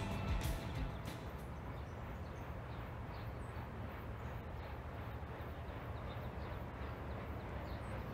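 Outdoor ambience: a steady low rumble with a few faint bird chirps, after music cuts out in the first second.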